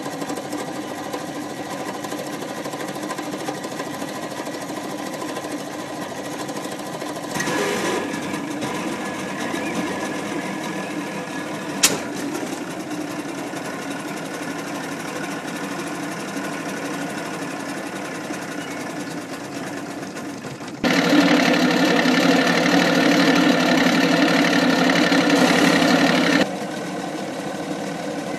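Chrysler three-cylinder two-stroke outboard motor running steadily with its lower unit in a barrel of water, on its first run after years of sitting. A single sharp click comes about twelve seconds in. Later it gets much louder for about five seconds, then drops back.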